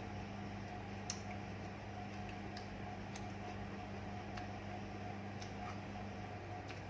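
Eating sounds: a handful of small sharp clicks and smacks, about one a second, over a steady low electrical hum.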